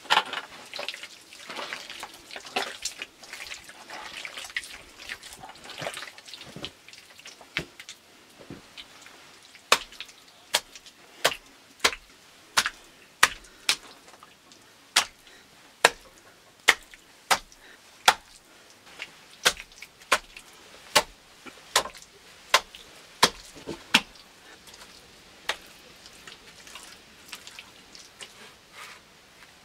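Hand-tool work: first softer, irregular noises, then from about ten seconds in a run of sharp, evenly spaced strikes, roughly one every three-quarters of a second, that stops a little before the end.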